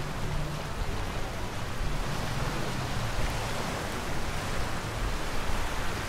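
Small ocean waves washing up onto a sandy beach: a steady rushing surf that swells in the second half, over a low rumble.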